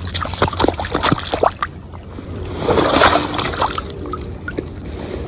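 Shallow stream water splashing and sloshing, with a scatter of sharp clicks and knocks from fishing gear being handled; the splashing swells about halfway through.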